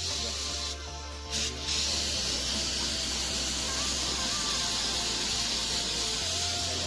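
Primer being sprayed onto a repair area: a steady spray hiss that stops briefly about a second in, then resumes and runs on.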